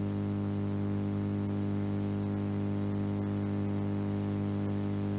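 Steady low electrical hum with a stack of overtones, unchanging, with a few faint clicks.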